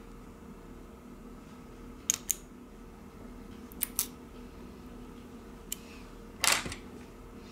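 Plastic spudger tapping and prying at small parts inside a Xiaomi Mi 9 phone: a few sharp small clicks, then one louder brief scrape about six and a half seconds in, over a faint steady hum.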